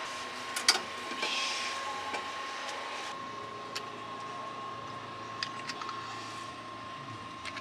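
Steady whirring hiss of kitchen equipment with a thin steady whine, broken by a few light clicks and knocks from handling. The sharpest click comes about half a second in.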